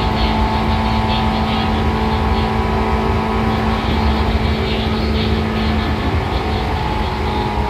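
Seibu 2000 series electric train running at an even speed: a steady low rumble from the wheels and running gear with steady whining tones from the traction motors and gears.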